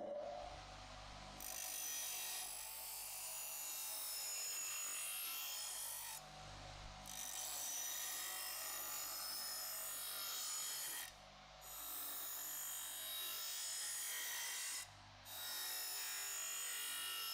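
Bench grinder motor running with a steady hum while a stainless steel knife edge is pressed against the spinning wheel's rim, making a continuous hissing rub as the edge is sharpened. The hiss drops out briefly three times, at about 6, 11 and 15 seconds in, as the blade is lifted off the wheel and set back on.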